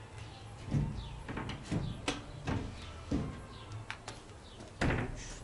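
Irregular knocks and clatter, about half a dozen sharp strokes with the loudest near the end, over a low steady hum.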